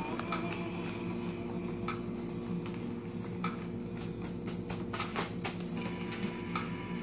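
Paper banknotes rustling and crackling as a fanned handful of dollar bills is handled, with a cluster of sharper crinkles about five seconds in, over a steady low hum.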